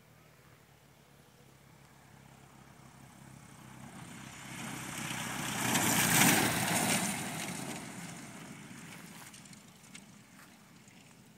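Cessna 172 single-engine propeller plane running at high power down a grass strip, plausibly on its takeoff roll. The engine and propeller grow steadily louder as it approaches, are loudest as it passes close about six seconds in, and then fade as it moves away.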